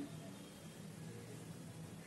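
Faint room tone: a low steady hiss with no distinct event.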